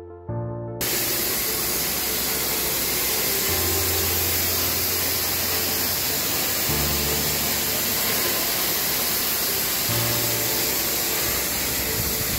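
Automated open-arc welding with flux-cored wire, hardfacing a vertical roller mill grinding roller: a loud, steady hiss of the arc that starts about a second in. Background music plays underneath.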